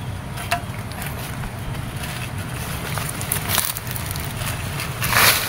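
Digging in soil and leaf litter with a metal bar: scattered scrapes and knocks, and one loud short scrape or crunch about five seconds in, over a low steady rumble.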